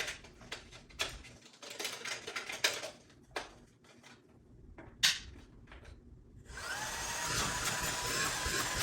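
Hard plastic parts clicking and knocking as a Belife cordless stick vacuum is handled and assembled; about six and a half seconds in, its brushless motor switches on and runs with a steady whine and rush of air.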